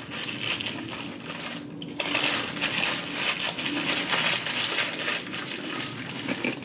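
Paper burger wrapper crinkling and rustling close to the microphone as a large hamburger is turned in the hands, louder from about two seconds in.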